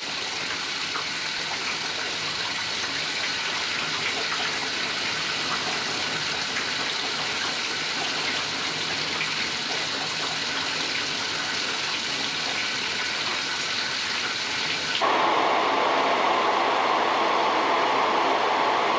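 Shower spray running steadily onto a man in a shower cubicle. About fifteen seconds in it cuts abruptly to the steady, louder running of a bonnet-type hood hair dryer's blower, with a low hum underneath.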